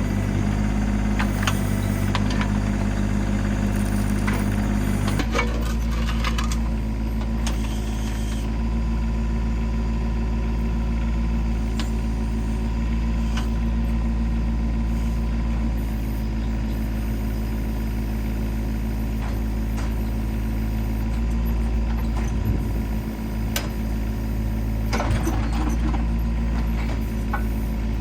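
An engine running steadily, its note changing about five seconds in, with a few clanks over it.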